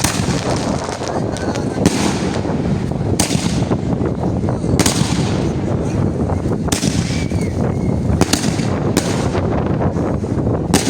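A 2-inch, 100-shot fireworks cake firing: a dense, continuous rumble of launches and aerial bursts, with sharp louder bangs standing out every second or two.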